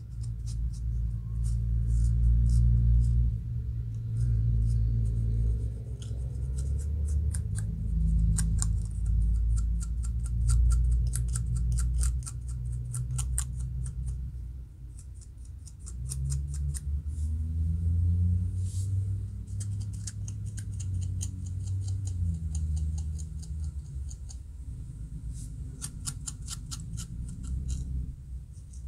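Fine-tooth plastic comb and fingernails scratching along a dry, flaking scalp between locs, lifting dandruff in quick runs of short, crisp scratchy strokes over a low background rumble.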